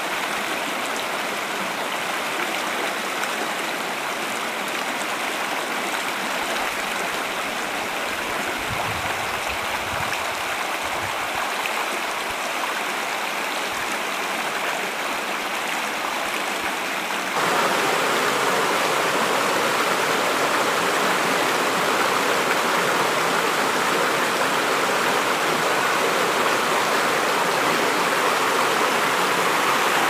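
Mountain stream rushing steadily over rocks and small cascades. About two-thirds of the way through the rush turns louder and brighter.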